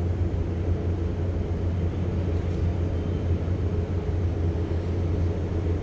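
Steady low drone of a cruise ship's engines and machinery, with no distinct events.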